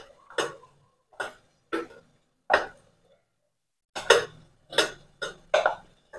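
Metal spoon scraping and knocking against a stainless-steel bowl while stirring melting chocolate pieces in a double boiler: short, irregular strokes, about nine in all, with a pause of just over a second midway.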